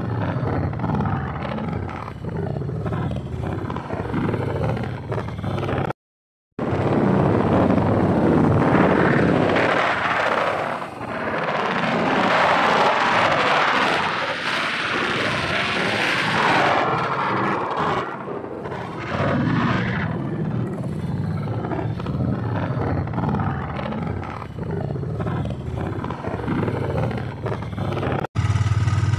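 Strong wind ahead of a storm gusting past the microphone: a loud rushing noise that swells and falls, at its loudest for several seconds in the middle. It cuts out for half a second about six seconds in.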